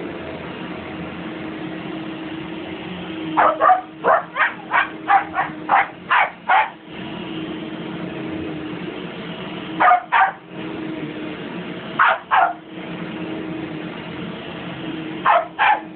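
Husky barking and yipping in short sharp bursts over the steady hum of a running vacuum cleaner. There is a quick run of about ten barks a few seconds in, then pairs of barks around the middle and again near the end.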